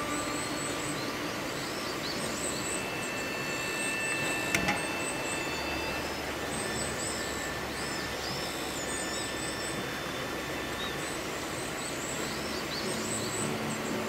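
Steady rushing outdoor background noise. Over it, faint high-pitched bird chirps come in short clusters of a few notes, repeating every couple of seconds, and a single sharp click falls about four and a half seconds in.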